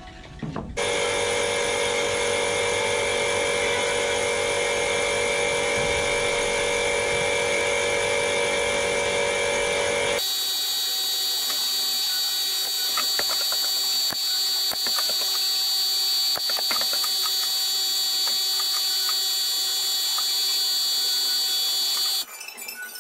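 A steady machine drone with several fixed whining tones, changing abruptly to a different steady drone about ten seconds in. Light knocks and clicks sound over the second part.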